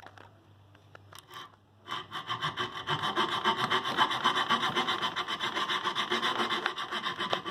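A hand saw cutting with fast, even back-and-forth strokes, starting about two seconds in after a few light clicks.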